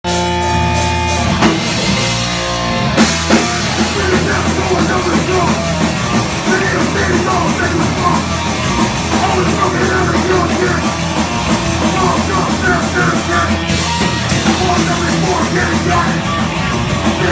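Hardcore punk band playing live: distorted electric guitar, bass and drum kit, with a vocalist shouting into a microphone. It opens on a held, ringing chord, then a few sharp drum hits about three seconds in, and the full band plays on at a steady loud level.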